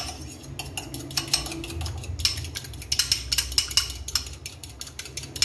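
A fork whisking a raw egg in a glass bowl, clicking rapidly against the glass in quick runs.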